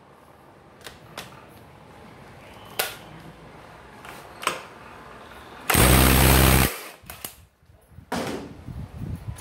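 Cordless impact wrench hammering for about a second, rattling the scooter's variator nut loose. A few short clicks and knocks come before it as the socket is fitted, and a clatter of handled parts comes near the end.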